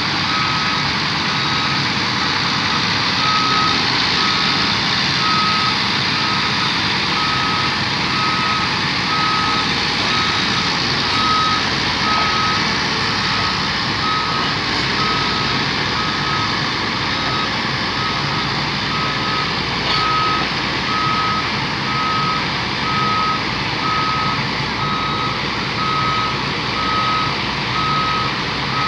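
Drilling rig's travel alarm beeping steadily, about one and a half beeps a second, over the steady noise of its engine as it moves off the lowboy trailer.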